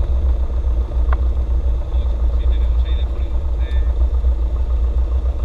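Cessna 172's piston engine and propeller running at low power on the ground, heard inside the cabin as a steady, deep, throbbing drone.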